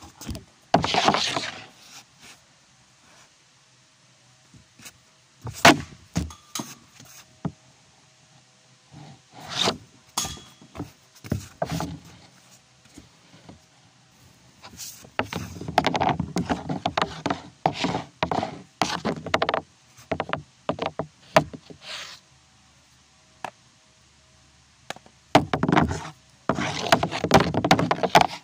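Ice hockey stick and puck on a shooting pad: a series of sharp clacks as the blade strikes the puck and pad on each shot, spaced irregularly. Longer stretches of scraping and clattering as the stick drags the puck across the pad come about halfway through and again near the end.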